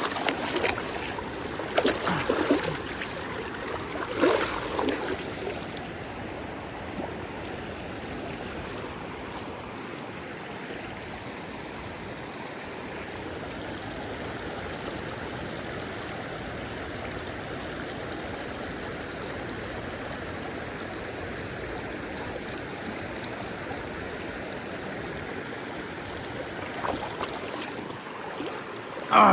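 River water flowing steadily, with a few louder brief noises in the first five seconds or so.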